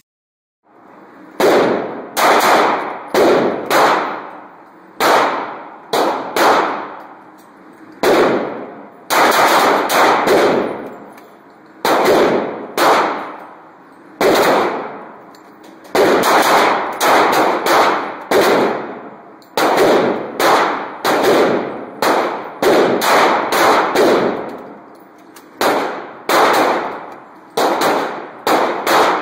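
Pistol shots echoing in an indoor shooting range, several dozen in quick strings, each shot followed by a ringing decay off the range walls.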